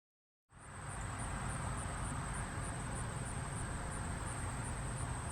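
Outdoor background starting about half a second in: a steady low rumble with a thin, high, steady insect drone that pulses about twice a second.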